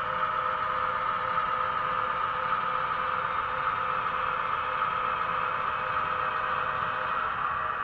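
Sound-equipped model Conrail diesel locomotive running light, its sound decoder playing a steady diesel engine drone.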